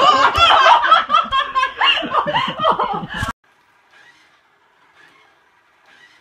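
Loud, hearty laughter that cuts off suddenly about three seconds in, followed by only faint sounds.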